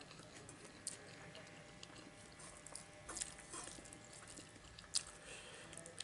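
Quiet eating by hand: fingers mixing and scooping rice on a metal plate, with chewing and scattered small clicks, the sharpest about five seconds in.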